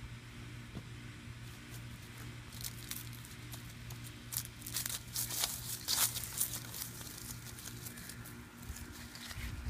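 Crinkling and rustling, starting about two and a half seconds in and loudest around six seconds, from a toddler handling an inflatable vinyl shark and walking over dry fallen leaves. A steady low hum runs underneath.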